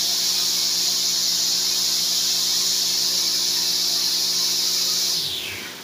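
Stihl KM130R trimmer's small 4-MIX engine idling steadily on its own, a little high. Near the end the engine note drops in pitch and dies away as it stops.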